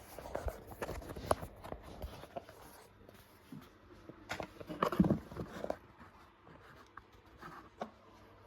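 Scattered clicks, taps and light knocks of tools and small parts being handled on a workbench, with a busier cluster of knocks in the middle.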